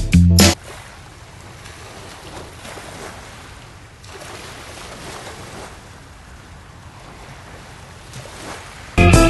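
Small waves washing onto a gravel beach: a steady hiss of surf that swells and eases gently. Music cuts off about half a second in and comes back in near the end.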